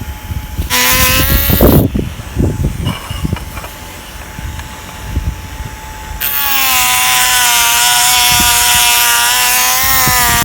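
Electric rotary carving tool grinding into shimpaku juniper wood to carve shari deadwood: a short burst about a second in, then a longer steady run from about six seconds in, its whine dropping slightly in pitch as it bites into the wood. Quieter scraping and knocks come between the two runs.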